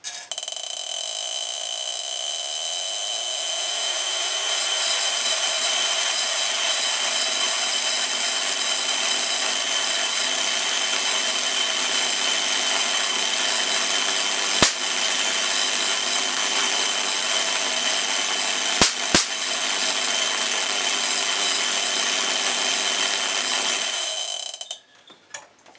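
High-voltage flare corona discharge from a thin bare copper wire above a metal plane: a steady, loud hiss with a high-pitched whine as the DC voltage is applied. It stops abruptly near the end. Three sharp clicks break through, one about 15 s in and two close together near 19 s.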